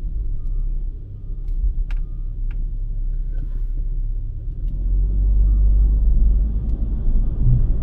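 Steady low rumble of a car on the move, with road noise that grows louder about five seconds in.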